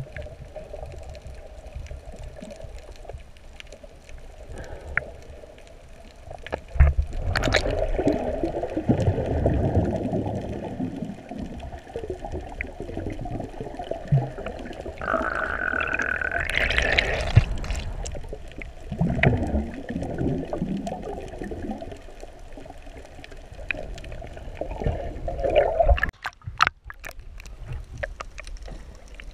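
Underwater recording from a GoPro in its waterproof housing: muffled sloshing and gurgling of water around snorkellers as they swim, in swells, with a short rising tone about halfway through and a sudden dropout with a few clicks near the end.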